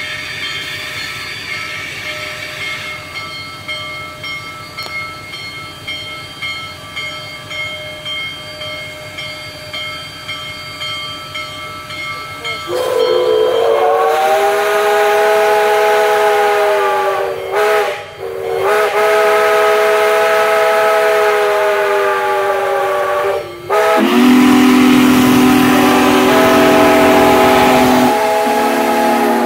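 Union Pacific Big Boy 4014 steam locomotive rolling slowly, its bell ringing in a steady pulse. About 13 seconds in, a steam whistle blows a long chord, broken off briefly a few times. For the last few seconds a deeper, louder steam whistle sounds, whistle answering whistle.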